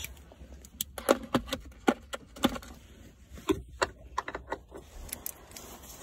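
Irregular metallic clicks of a socket ratchet and extension on a tight 12 mm bolt of the gear selector unit, a dozen or so sharp ticks at uneven spacing.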